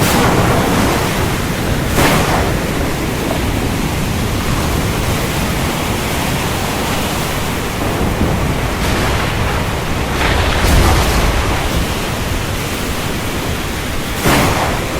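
Storm ambience: heavy rain pouring steadily, with brief louder surges near the start, about two seconds in and near the end, and a low rumble of thunder about ten seconds in.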